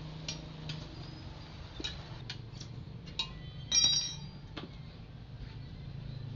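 Metal hand tools clinking and tapping against metal wheel parts while the wheel is taken apart: a series of sharp clicks, with one louder ringing clank a little under four seconds in.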